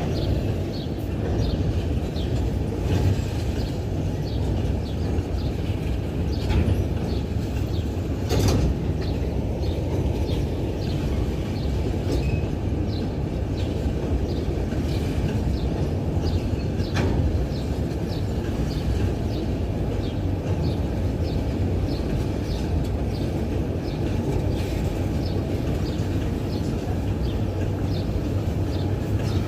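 Empty freight train rolling by behind diesel locomotives: a steady low rumble with frequent short clicks of wheels over the rail, and a few sharper knocks, the loudest about eight seconds in.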